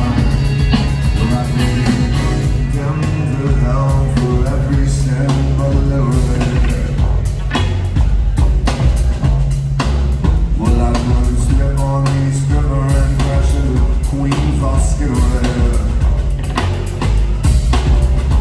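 Live rock band playing loudly: drums keep a steady beat under a repeating bass line and guitar.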